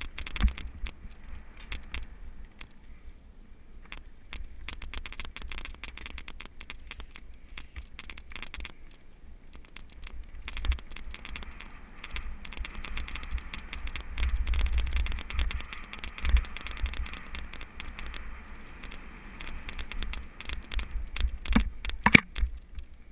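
Mountain bike riding down a dirt singletrack: a steady run of rattling clicks as the bike and camera shake over the rough ground, with tyre crunch and a low rumble on the microphone. There are a few harder knocks from bigger bumps, the loudest near the end.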